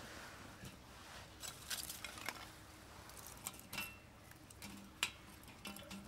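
Scattered light clicks, clinks and rustles of objects being handled, with one sharper knock about five seconds in.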